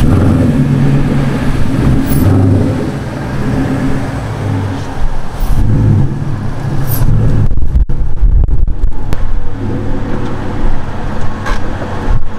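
Ford Mustang GT's 5.0-litre V8 engine running as the car is driven slowly, its exhaust note swelling and easing a few times.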